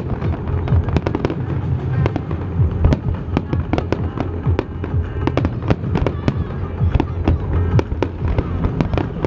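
Aerial fireworks bursting in rapid succession: many sharp bangs and cracks a second over a steady low rumble.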